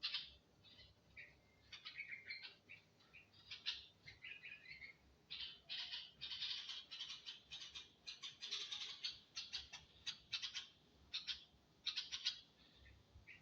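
Baby birds chirping: many short, high-pitched cheeps in quick, irregular runs, busiest in the middle.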